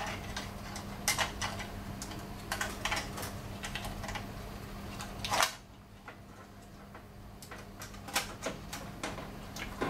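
Irregular clicks and light metal knocks as a photocopier's main board, mounted in its sheet-metal bracket, is handled and fitted into the machine's metal frame, with one louder knock about five and a half seconds in.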